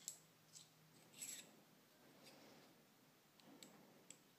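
Faint, scattered light clicks and a brief scrape about a second in, from small metal lock parts being handled: a brass padlock plug and a thin metal rod.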